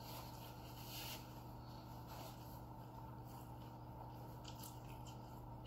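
Quiet room tone with a steady low hum, under faint soft handling sounds of fingers picking at fish and rice on a plate and a paper napkin being wiped over hands.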